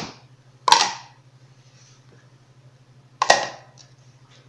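Three sharp knocks of kitchenware against a plastic mixing bowl while flour is added, the first two close together and the third near the end, over a low steady hum.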